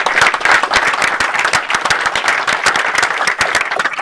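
A small group applauding in a meeting room, many hands clapping at once. It builds just before and thins out just after.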